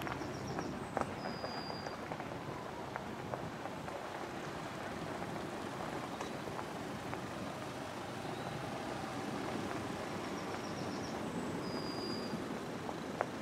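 Steady open-air noise over a field, with a short high whistled call twice: about a second in and again near the end.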